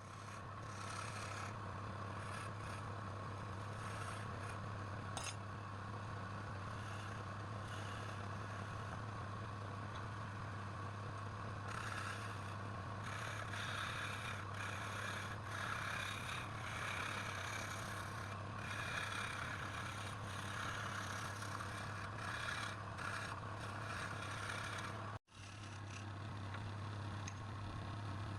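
Wood lathe running with a steady motor hum while a hand-held turning tool scrapes and cuts the spinning wood, the cutting noise rising and falling. The sound drops out abruptly for an instant near the end.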